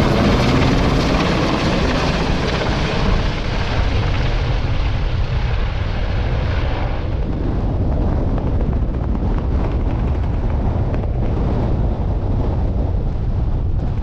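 Strong wind buffeting the microphone, with a helicopter's engine and rotor sound fading away during the first few seconds.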